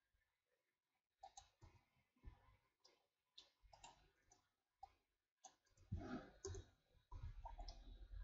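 Faint clicks of a computer mouse and keyboard being worked, scattered one or two at a time, becoming louder and denser with some low thumps near the end.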